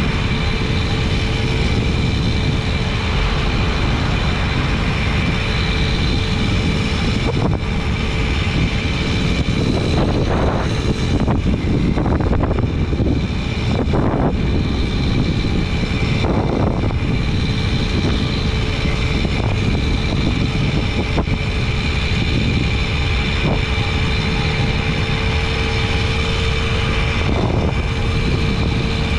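Jawa Babetta 210 moped's 50 cc two-stroke single-cylinder engine buzzing steadily at cruising speed, its pitch holding constant, over a low rush of wind on the microphone.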